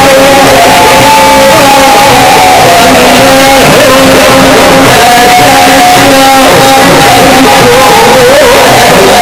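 Very loud live Egyptian Sufi inshad music. A melodic instrument holds long, steady notes, with a short ornamented run near the end, over the band with a hand drum. Some singing and crowd shouts can be heard.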